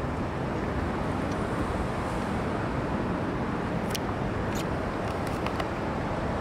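Steady urban riverside rumble and hiss, most likely road traffic crossing the bridge overhead, with a few faint ticks about four to five and a half seconds in.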